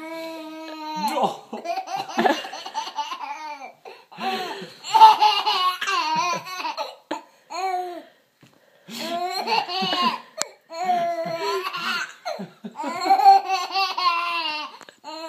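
Baby laughing hard in several high-pitched bouts, with short breaths between them.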